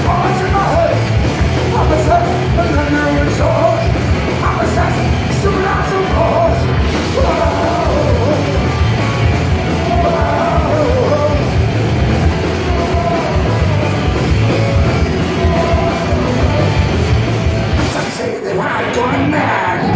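Live heavy rock band playing loud, with distorted electric guitars, drums and a singer's vocals over the mix, heard from the crowd through the PA. The music thins out briefly near the end.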